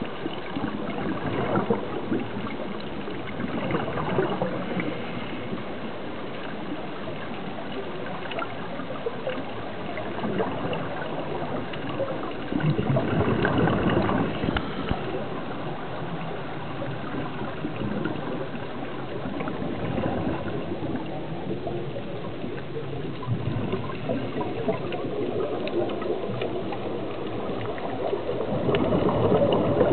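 Scuba divers' exhaled bubbles bubbling and gurgling underwater, in irregular louder surges, heard through an action camera's waterproof housing.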